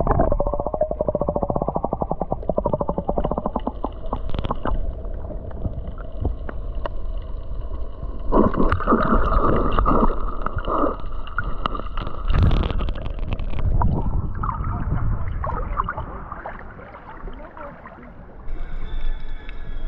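Muffled water sloshing and gurgling against a camera held under shallow seawater, with stronger surges of churning water and one louder splash about twelve seconds in. Near the end the sound changes as the camera comes up to the surface.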